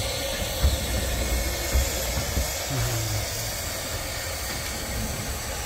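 A 15-inch gauge steam locomotive hissing steadily as steam escapes from beneath it, over a low rumble with a few soft knocks.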